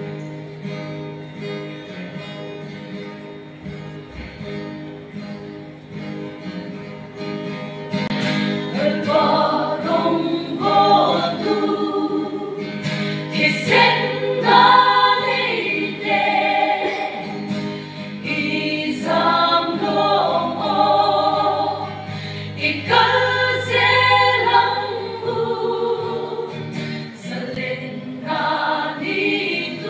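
Mixed church choir of women's and men's voices singing together in harmony under a conductor. The singing is softer at first and grows louder about eight seconds in.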